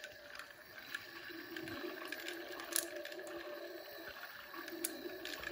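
Discovery Mindblown water tornado toy running at its fastest setting: the drone of the sound effect from its sound button over the motor and swirling water, with a few light clicks.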